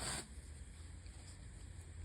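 A person's short, sharp breath at the very start, then only a faint steady hum.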